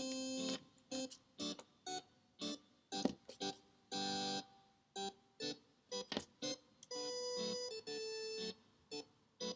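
Background music: a keyboard melody of short, separated notes, with a few longer held notes.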